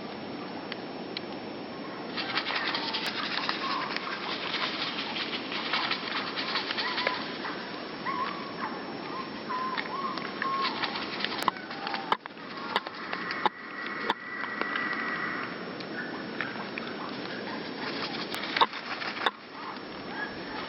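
Small birds chirping and calling in a busy run of short notes, with several sharp wing flaps in the second half, over a steady background hiss.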